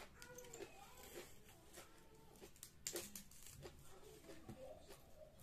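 Faint eating sounds: chewing and mouth clicks as food is eaten by hand, with soft tearing as pieces of food are pulled apart, and one sharper click about three seconds in.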